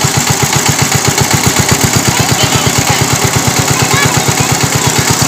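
Small engine running steadily with a fast, even chug of about nine beats a second.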